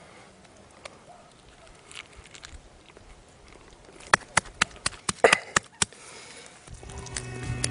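Wet, crisp crunching of raw prickly pear (nopal) pad being bitten and chewed: a quick run of sharp crunches about four to six seconds in, after faint rustling of the pad being torn apart by hand. Music fades in near the end.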